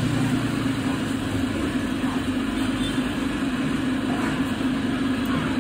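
A steady low mechanical hum, like a motor running.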